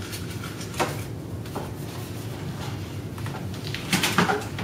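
A large hardcover picture book being handled and opened against a whiteboard easel. A single light knock comes about a second in and a fainter one shortly after. Near the end, a cluster of louder knocks and rubbing comes as the cover is swung open and the pages are spread flat.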